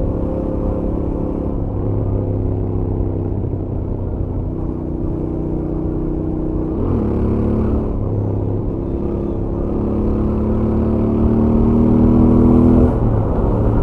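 Stock Royal Enfield Interceptor 650's 648 cc parallel-twin engine and exhaust under way at highway speed. Its pitch climbs steadily and falls back sharply about halfway through, then climbs louder again and drops near the end.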